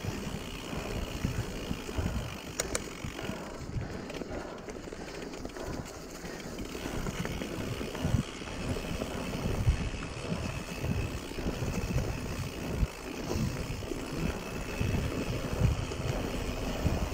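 Mountain bike rolling fast down a rough dirt singletrack: tyres on dirt and stones and the bike rattling over the bumps, with frequent low thumps and a sharp click about two and a half seconds in.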